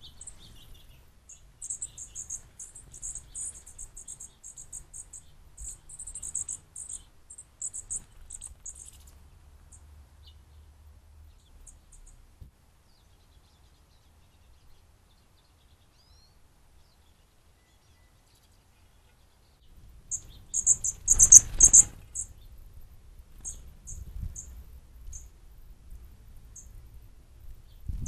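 High, thin chirps from fledgling songbirds in quick runs for several seconds, then a lull. About two-thirds of the way in comes a loud cluster of chirps with a rush of noise under it, trailing off into scattered single chirps. A faint low rumble runs underneath.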